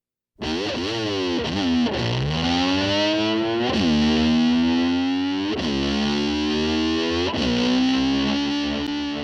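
Distorted electric slide guitar swooping down and back up in pitch every couple of seconds, imitating a motorcycle revving, then settling on a held note near the end.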